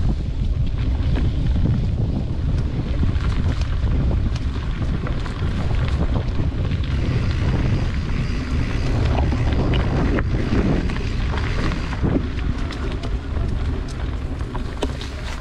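Wind buffeting the microphone of a camera on a mountain bike riding a dry, leaf-strewn dirt trail, with scattered clicks and crackles from the bike and tyres over the ground.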